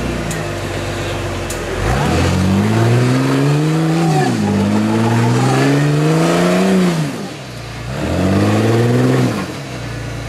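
Jeep Cherokee engine revving under load while climbing a rock ledge, in three rising bursts that drop back to a low idle between them.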